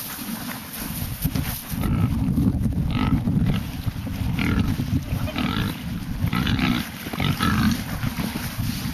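Hogs grunting steadily, with short squeals coming about every second or so: pigs excited at feeding time, expecting a treat.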